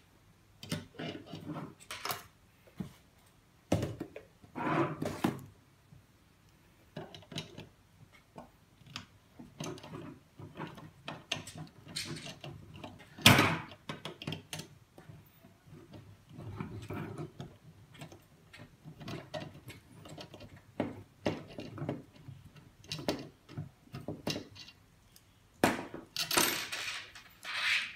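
Screwdriver and needle-nose pliers working small bolts out of a metal printer plate on a wooden table: irregular small clicks, scrapes and knocks of tool and metal parts, with one sharp knock about halfway through.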